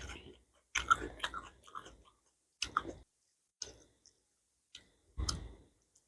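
A person chewing and biting food close to the microphone, with wet clicking mouth sounds. They come in short bursts about every one to two seconds, separated by silence.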